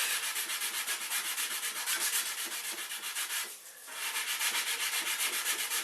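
Sandpaper rubbed back and forth by hand, rounding off a sharp edge of the CNC table into a chamfer so that it cannot dig into the guide rails. Quick, even strokes, about six a second, with a brief pause a little past halfway.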